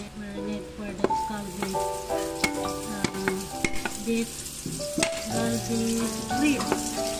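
Cleaver knocking on a wooden cutting board as garlic cloves are chopped and crushed, in sharp, irregular strikes about once a second, over background music with a melody of held notes.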